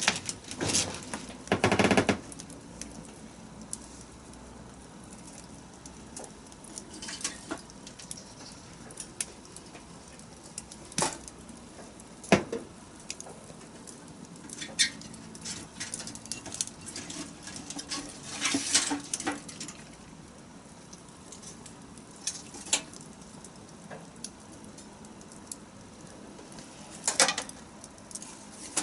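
Wood bonfire crackling: irregular sharp pops and snaps over a soft steady hiss, with a few louder bursts of crackling.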